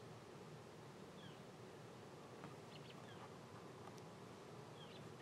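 Near silence of an open field, with a small bird's faint short falling chirps repeating three times.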